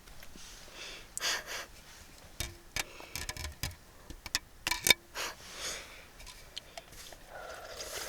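Scattered small clicks and rustles of a bubble-tea cup being handled, with a few short sips through the drink.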